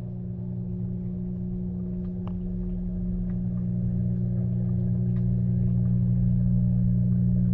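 Maytag front-loading washing machine running its delicate cycle, heard from inside the drum: a steady low motor-and-drum hum that grows louder over several seconds, with faint light clicks from the load.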